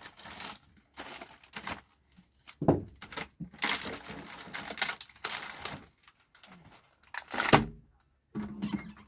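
Rummaging through snack packets in an overhead cupboard: plastic wrappers crinkling and rustling in irregular bursts, with knocks of things being moved. There is one loud knock about seven and a half seconds in.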